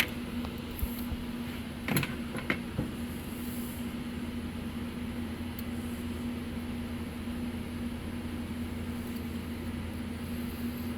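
Steady mechanical hum of a fan or air-conditioning unit in the room, with two short clicks about two seconds in from hand work on carburetor linkage parts.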